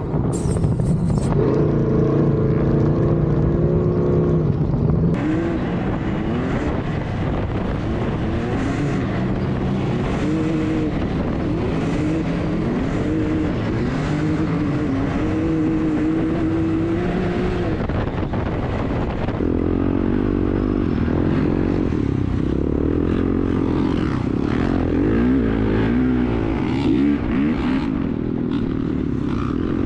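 Off-road engines revving hard over sand dunes, climbing and falling in pitch with throttle and shifts: a sand rail and a Can-Am X3 side-by-side, then, for the last part, a dirt bike.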